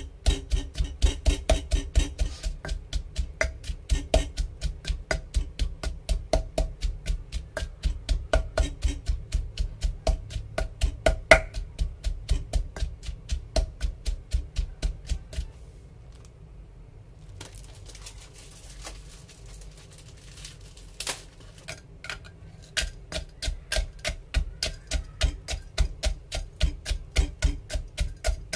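Knife chopping on a cutting board in a fast, even rhythm of about three strokes a second, each stroke with a dull thud. The chopping pauses for several seconds a little past halfway, then starts again.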